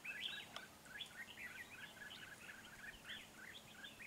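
Red-whiskered bulbul calling: a quick, unbroken run of short chirping notes, several a second.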